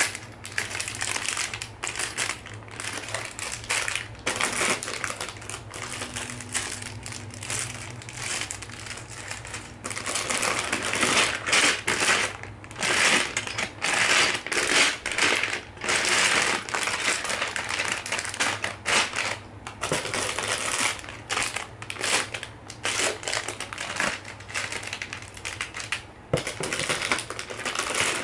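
Clear plastic bags of small white LEGO bricks crinkling as they are handled and shaken, the plastic bricks inside clattering and clicking against one another. The crinkling and clatter get louder and busier after the first third.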